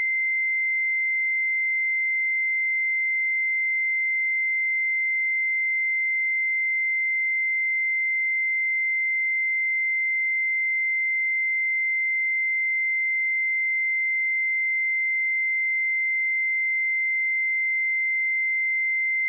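A steady pure sine-wave test tone at 2081 Hz, one unchanging high-pitched note at constant level.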